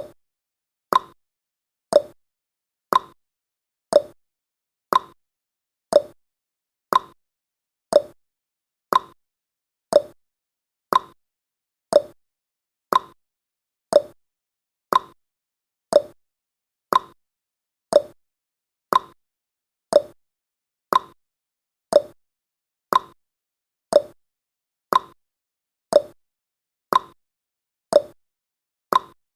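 A countdown timer's ticking sound effect: one short, sharp tick every second, evenly spaced and steady, each dying away quickly.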